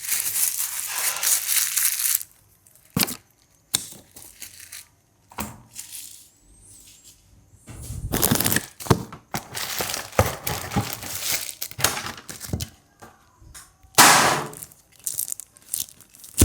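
Packaging being unwrapped and handled: three stretches of rustling, near the start, in the middle and near the end, with scattered knocks and clicks between them.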